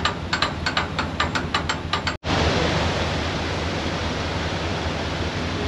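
Rapid, regular clicking, about six clicks a second, that breaks off abruptly about two seconds in. It is followed by a steady rush of water pouring through the staircase lock's open paddles.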